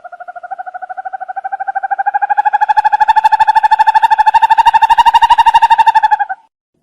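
An owl's long, rapid trill of evenly pulsed notes. It rises slightly in pitch and grows louder as it goes, then cuts off suddenly about six seconds in.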